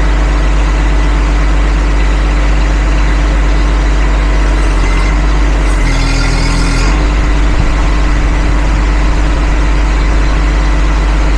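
Engine idling steadily, with a brief louder rush of noise about six seconds in.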